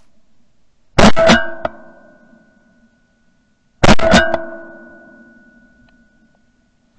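Two shotgun shots, about three seconds apart, recorded from a camera mounted on the gun. Each very loud report is followed by a ringing tone that fades out over about two seconds.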